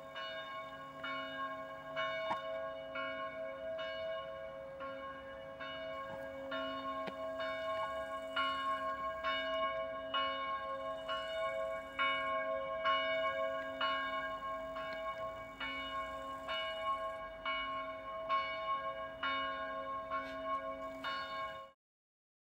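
Church bells ringing: a steady run of strikes about every 0.7 s over a lingering hum, cutting off abruptly near the end.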